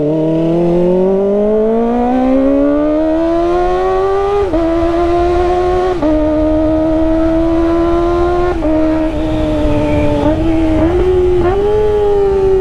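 Kawasaki ZX-25R inline-four engine through an aftermarket IXIL exhaust under hard acceleration. The engine note climbs steadily for about four seconds, then holds high with several brief dips as gears change, and rises again near the end.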